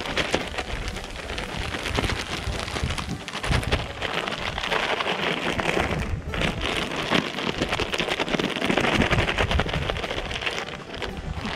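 A Ziploc plastic bag crinkling and rustling as walleye pieces are shaken inside it to coat them in pancake batter. It breaks off briefly about six seconds in.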